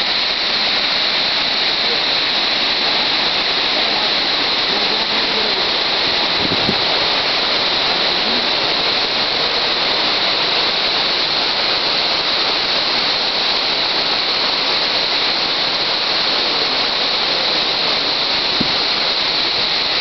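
Rushing water of a waterfall, a steady even hiss.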